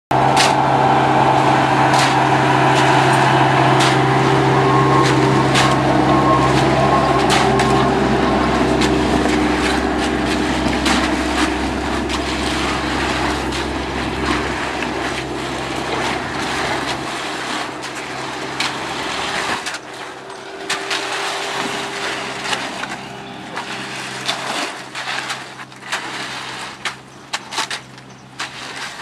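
A heavy engine runs steadily, loudest in the first half and fading away after about fifteen seconds. Over it, come-along rakes scrape and clatter through wet concrete and gravel, and these sharp scrapes and clicks stand out more clearly near the end.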